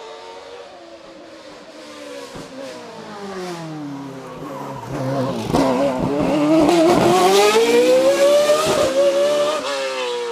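Racing sports prototype's engine growing louder as it approaches, its pitch dropping as it brakes and shifts down into a hairpin, then climbing steadily as it accelerates hard out of the corner, loudest in the second half before fading.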